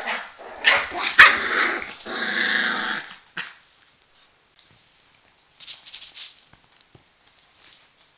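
Four-week-old Border Collie puppy growling and yapping in play for about three seconds, then faint scuffling of small paws.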